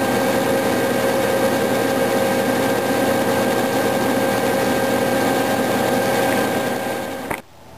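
Clausing metal lathe running under cut while the tool bit takes an interrupted cut across the copper bars of a generator armature's commutator, truing it up: a loud, steady machine whine. It stops suddenly near the end.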